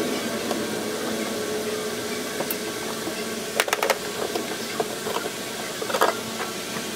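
A few sharp clicks and knocks of hands handling a diesel fuel feed pump and pulling it off its fuel hoses, a cluster about halfway through and another near the end, over a steady background hiss.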